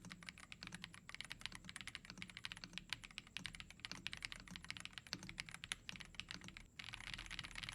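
Rapid typing on the Ajazz AK820 Pro gasket-mount mechanical keyboard with Flying Fish linear switches: a quick, dense run of soft keystroke clacks. A steady hiss joins in near the end.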